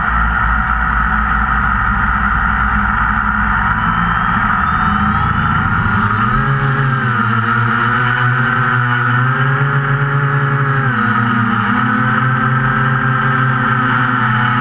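QAV400 quadcopter's four brushless motors and 8-inch props running, heard from the camera mounted on the craft: a loud, steady whine. From about six seconds in its pitch rises and falls over and over as the throttle changes in flight.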